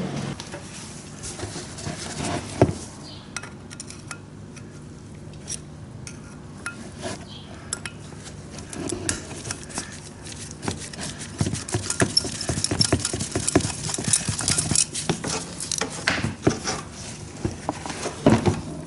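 Small metal tools clinking and scraping on metal as a screwdriver works the pilot jet out of a carburetor. The light clicks are scattered at first and come thick and fast in the second half.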